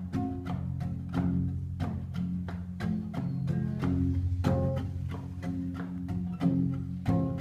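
Nylon-string classical guitar fingerpicked in an instrumental passage: a steady rhythm of plucked notes over ringing bass notes.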